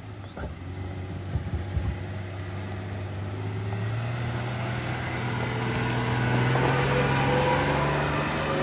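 Toyota Tacoma pickup's engine pulling under load as it climbs a steep dirt hill, its note slowly rising in pitch and growing louder as the truck comes up close. A few knocks sound about a second and a half in.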